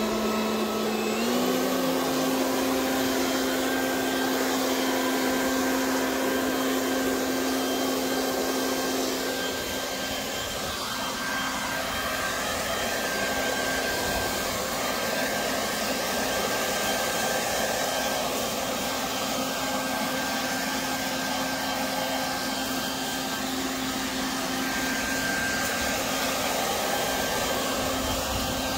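Portland 12-amp corded electric 3-in-1 blower vacuum mulcher running in blower mode: a steady motor whine over rushing air. Its pitch steps up slightly just over a second in, then holds.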